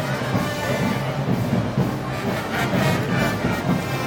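Moros y Cristianos festival band music playing at a steady beat.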